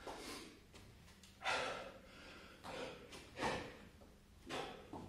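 A man breathing hard from exertion in the middle of a long burpee set, with about five loud, sharp breaths roughly a second apart.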